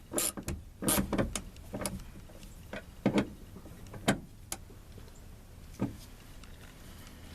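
About ten irregular clicks and knocks of hand tools and metal parts being handled at the truck's door striker, spread over the first six seconds and then stopping.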